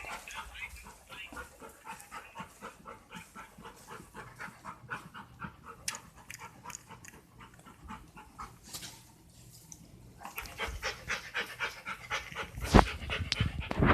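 A dog panting rapidly, about three breaths a second, with a short pause and then louder panting; fast, stressed panting from a dog frightened by fireworks. A few loud knocks near the end.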